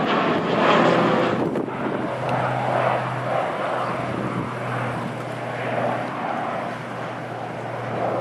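PZL M28 Skytruck twin turboprop flying a display pass, its engines and propellers making a steady drone with a low, constant propeller tone.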